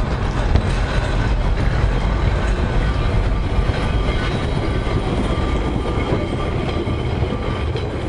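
Illuminated Blackpool tram passing at close range, running along the rails with a steady low rumble.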